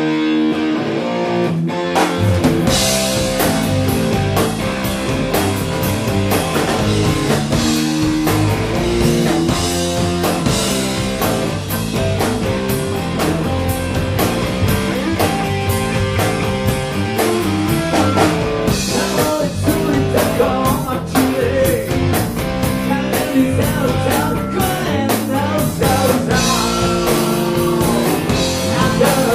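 Rock band playing live: electric guitar alone at first, then drums and bass come in about two seconds in and the full band plays on.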